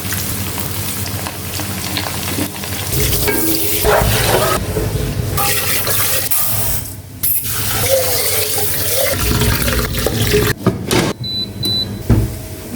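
Water running from a tap into a sink and splashing, with short breaks in the flow about seven seconds in and again near the end.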